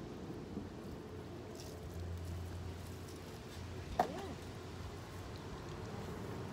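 Hands rubbing and scrubbing a wet, soapy dog's coat, a soft wet squishing. A short sharp sound stands out about four seconds in.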